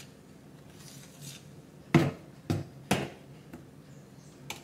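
A spoon stirring a thick, foamy gelatin and beaten egg-white mixture in a plastic bowl: faint stirring sounds, with three sharp knocks of the spoon against the bowl about two to three seconds in and a lighter click near the end.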